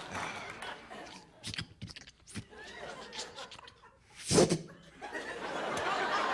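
Studio audience laughing, broken by a run of short clicks and a short, loud noisy blast about four seconds in, which are mouth-made sound effects into a microphone; the laughter swells again near the end.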